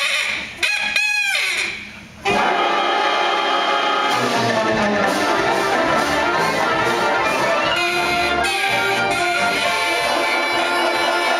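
Live wind band music. It opens with a few short pitched calls that bend up and down. About two seconds in, the full band comes in loud, with brass to the fore.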